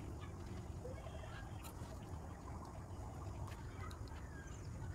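Quiet outdoor background with a steady low rumble, faint calls of birds, and a few light clicks of a small metal spoon against miniature clay plates as halwa is served.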